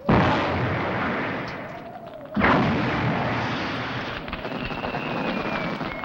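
Movie pyrotechnic explosions: two loud blasts about two and a half seconds apart, each dying away in a long rumble, with a faint falling whistle near the end.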